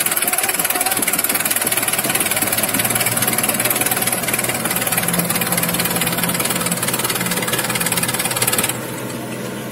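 Tractor diesel engines running hard in a tug-of-war pull, the nearer one a Sonalika 750 four-cylinder, with a loud steady clatter. The sound suddenly gets quieter near the end.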